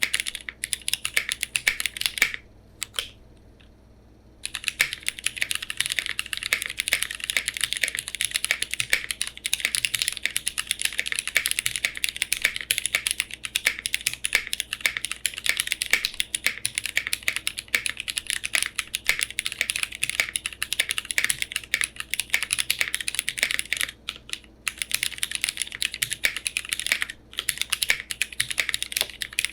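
Zen65 mechanical keyboard with modded retooled Cherry MX Brown switches in an aluminium plate with no foam, typed on quickly and continuously in a dense run of key clicks. The typing stops for about two seconds shortly after the start, and there are two brief breaks near the end.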